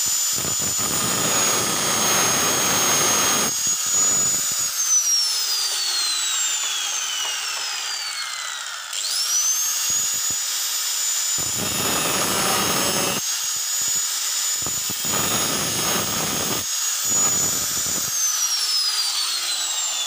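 Electric angle grinder whining at full speed and grinding the head of an old engine valve in several passes, shaping it into a valve seat cutter. About four and a half seconds in it is switched off and winds down with a long falling whine. It starts again with a quick rising whine about nine seconds in, grinds in short bursts, and is switched off and winds down near the end.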